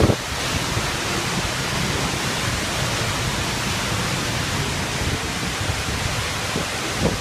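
Steady rush of a tall waterfall's falling water, heard close from the trail behind the falls.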